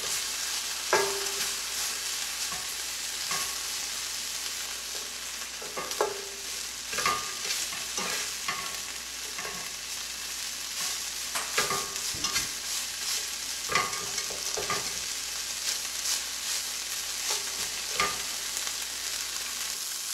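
Broccolini sizzling in hot olive oil in a nonstick sauté pan, with a spatula scraping and knocking against the pan at irregular moments as the stalks are tossed.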